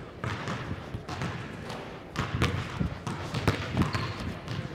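Basketballs bouncing on a hardwood gym floor, a series of irregular thuds.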